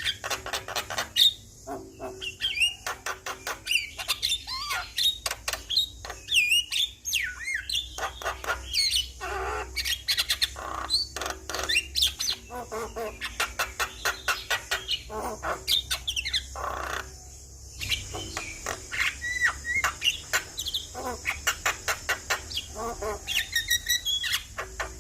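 Javan myna (jalak kebo) singing in a fast, continuous chatter: rapid clicking rattles mixed with short whistled and slurred notes.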